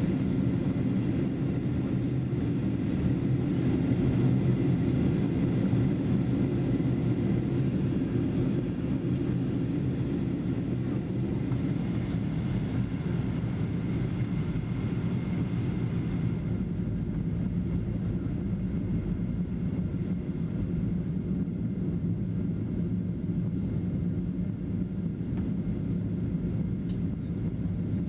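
Steady cabin drone of a Boeing 737 in flight, heard from inside the cabin: a low, even hum of engine and airflow noise.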